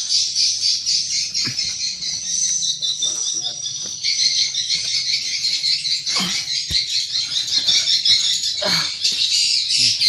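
Swiftlet calls: a dense, unbroken chatter of rapid high chirps filling the swiftlet house, with a few soft thumps of handling or footsteps.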